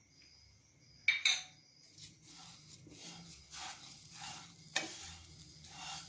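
Wooden spatula stirring dry grated coconut and jaggery in a non-stick pan, a rhythmic dry scraping about twice a second. About a second in there are a couple of sharp clinks from a small steel bowl knocking against the pan, with another clink near the end.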